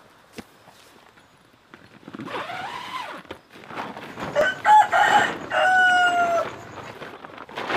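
A rooster crowing: a shorter call that rises and falls about two seconds in, then a full crow of several short broken notes ending in one long held note.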